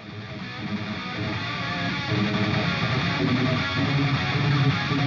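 Background music led by strummed guitar, fading in over the first couple of seconds.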